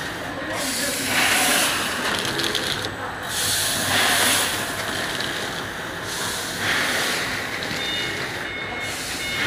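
Automatic vertical salt-packing machine running, forming, filling and sealing a film tube into small sachets, with hissing bursts every few seconds.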